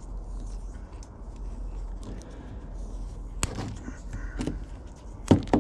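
Electrical tape and a wiring harness being handled while the joints are taped: light rustling, a sharp click about three and a half seconds in and two louder snaps near the end.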